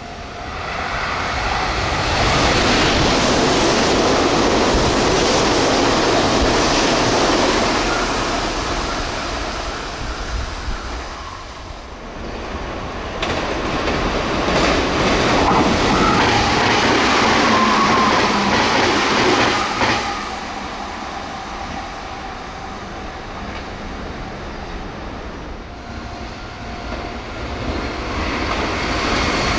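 Meitetsu electric express trains passing at high speed, wheels clattering over the rails. The roar swells a couple of seconds in, drops back around the middle, swells again for a long pass, then eases and rises again near the end.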